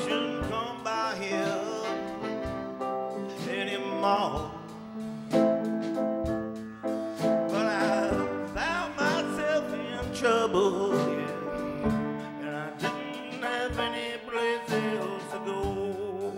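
Live band playing: a saxophone carries a wavering melody over upright piano chords and a drum kit keeping the beat.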